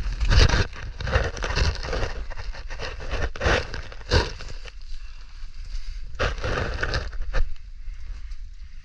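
Irregular scraping, crunching and knocking of a person crawling over rock and dry leaves, with the hand-held camera rubbing and bumping. Busiest in the first half, with a few sharp knocks later, easing off near the end.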